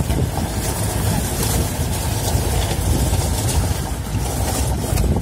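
Open safari jeep driving along a gravel track: steady engine and tyre rumble, with wind buffeting the microphone.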